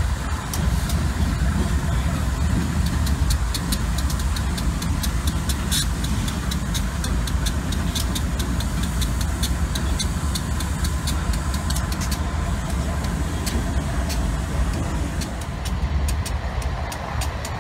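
Steady low engine rumble with a faint constant hum, and many short sharp ticks scattered through it.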